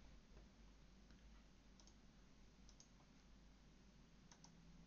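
Near silence with a few faint computer mouse clicks, some in quick pairs, while nodes are being added in a 3D program.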